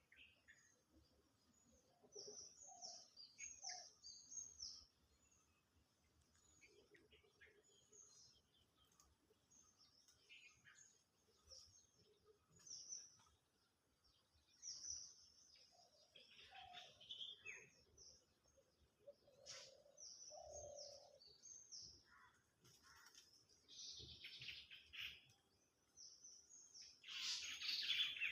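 Songbirds chirping faintly: runs of short, quick, high chirps repeat throughout, with some lower calls in between. The chirping grows louder near the end.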